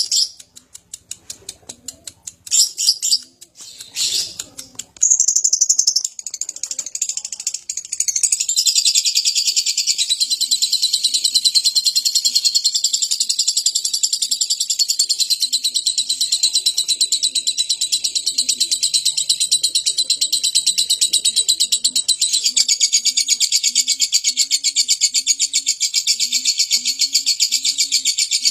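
Lovebird calling in short high chirps, then breaking into a long, unbroken, very fast chattering trill (the 'ngekek') that carries on for about twenty seconds without a pause.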